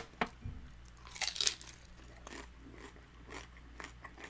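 A bite into a crispy birria taco followed by crunching and chewing. It is loudest about a second in.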